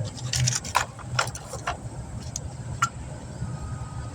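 Sharp metallic clicks and clinks, about six over the first three seconds, as new brake pads are handled and fitted into a disc brake caliper bracket. A low steady vehicle hum runs underneath.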